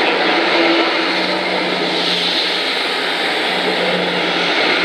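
Class 159 diesel multiple unit's underfloor diesel engines running steadily with a low hum as the train pulls away past, mixed with the rumble of its wheels on the rails.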